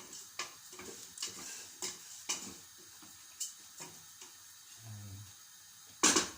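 A kitchen utensil tapping and scraping in a cooking pot during stirring, as light, irregular clicks, with two sharper clacks near the end.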